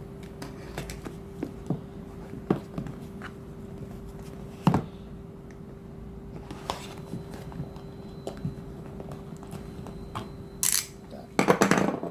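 A blade cutting open the tape and cardboard of a parcel: scattered light taps, clicks and scrapes, with a louder tearing rasp near the end. A faint steady hum runs underneath.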